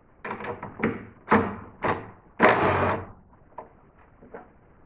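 Socket ratchet clicking in short strokes, about two a second, loosening a 13 mm bolt on a carbon-fibre strut brace, with one longer stretch of clicking a little past halfway.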